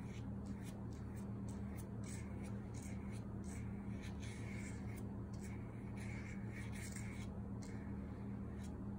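Paintbrush bristles brushing wet watercolor across paper, a soft scratchy stroking repeated many times, over a steady low hum.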